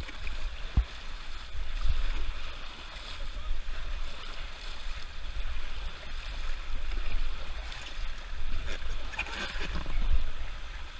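Whitewater river rushing around a raft: a steady hiss of moving water, with a constant low rumble and a sharp knock right at the start, then a smaller one just under a second in.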